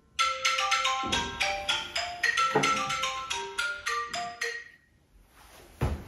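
A quick melody of marimba-like struck notes, several a second, that stops about a second before the end; a low thump follows near the end.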